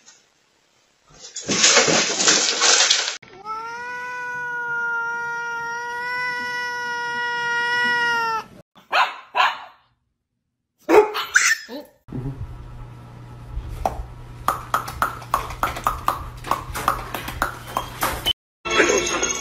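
Domestic cat yowling: one long, steady, drawn-out call lasting about five seconds, preceded by a short noisy burst. After that come short cries, and then a steady low hum with a quick run of clicks and taps.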